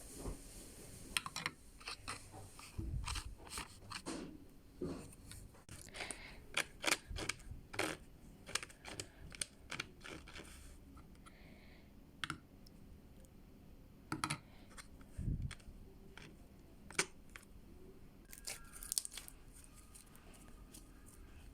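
Slime activated with borax solution being mixed and kneaded by hand: a long run of irregular sticky clicks, snaps and crackles, with a few soft thumps.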